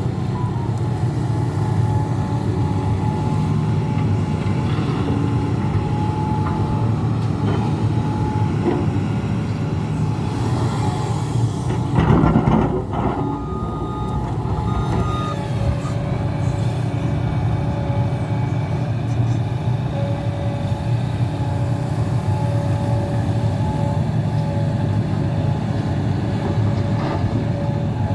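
Hidromek HMK 390LC excavator's diesel engine running steadily under load, with thin steady tones coming and going over it. About twelve seconds in comes a loud, noisy burst lasting about a second.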